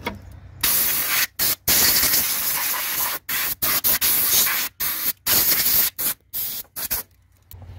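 Aerosol spray can, such as brake cleaner, hissing in a series of about eight short, loud bursts that start and stop sharply.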